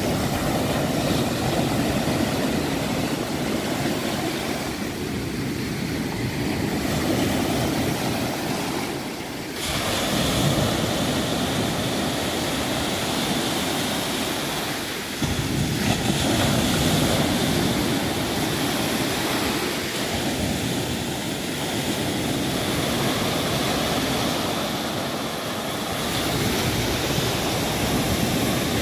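Surf: small waves breaking and washing up the shore in a steady rush of water noise, which shifts abruptly twice.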